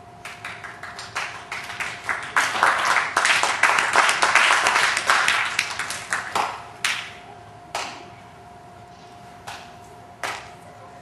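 Audience applause: clapping that builds over the first couple of seconds, holds for a few seconds, then thins out to a handful of scattered single claps.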